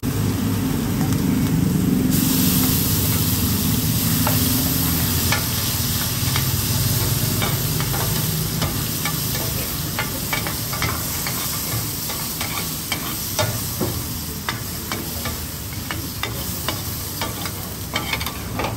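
Taro omelette frying in hot oil on a large flat pan, sizzling loudest in the first couple of seconds. From about four seconds in, two metal spatulas scrape and clack against the pan over and over.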